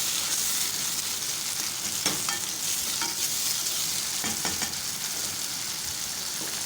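Chopped tomatoes and garlic sizzling steadily in hot oil with sautéed onions in a pot as they are stirred, with a few short clinks and scrapes of the stirring utensil against the pot.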